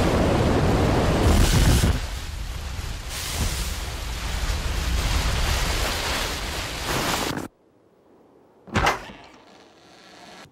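A loud, steady rushing noise from the cartoon rocket-propelled log cabin sliding down a snowy slope. It cuts off abruptly about seven and a half seconds in, and a single sharp thud follows about a second later.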